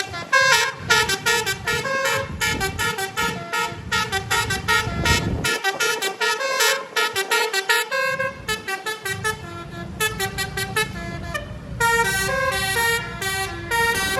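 Bus telolet horn of the basuri type, playing a fast melodic tune of short notes stepping up and down, over a low rumble.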